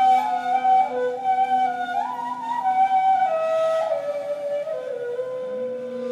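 Two neys (end-blown reed flutes) playing an improvised modal duet, breathy in tone. One holds a low note while the other moves through a slow melody that steps up and down, with a brief rise about two seconds in. A new low note enters near the end.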